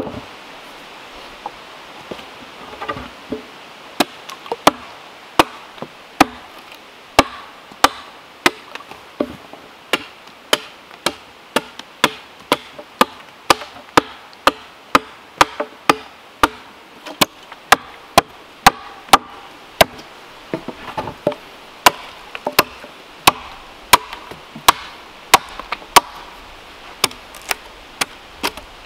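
A tool striking wood in a steady run of sharp blows, roughly three every two seconds, starting after a few softer knocks.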